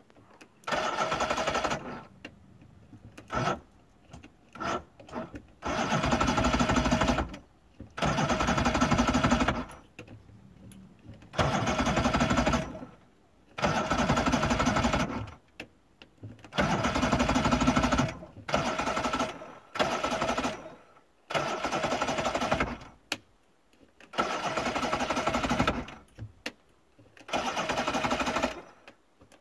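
Johnson V4 two-stroke outboard motor being cranked by its electric starter about ten times, each crank lasting one to two seconds and stopping abruptly, with a couple of short blips near the start. The engine turns over but never fires: it won't start.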